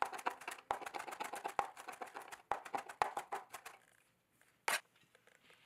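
Knife rapidly chopping fresh leafy herbs on a cutting board, a fast even run of crisp taps that stops about two thirds of the way through, followed by one single sharper knock about a second later.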